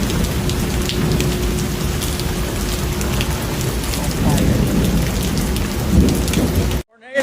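Heavy rain pouring down, with many sharp ticks of drops striking hard surfaces over a deep steady rumble of storm noise. A faint steady hum sits under it for the first few seconds. The sound cuts off abruptly just before the end.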